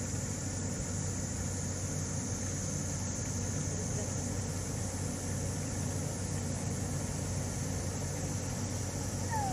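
Steady low hum and background noise, with a faint murmur of distant voices and a short falling call near the end.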